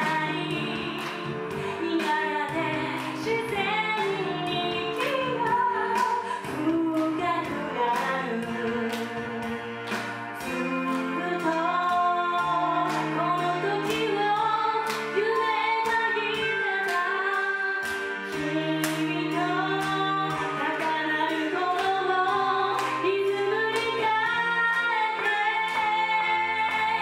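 Children singing a pop song over a backing track with a steady drum beat.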